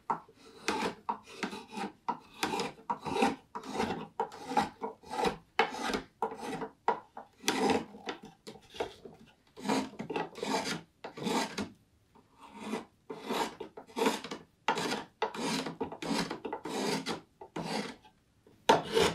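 Spokeshave cutting green black walnut: a steady run of short scraping strokes, about one to two a second, as the blade peels shavings off the outside of a carved bowl, with a couple of brief pauses.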